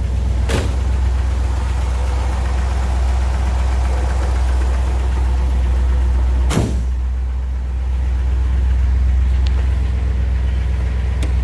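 1957 Ford Thunderbird V8 idling steadily with a deep, even hum. Two sharp thumps cut through it, one about half a second in and another about six and a half seconds in.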